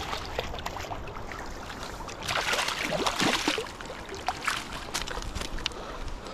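Water splashing and dripping close by as a hooked brook trout is landed, with a louder burst of splashing for about a second midway and scattered sharp drips and plops around it.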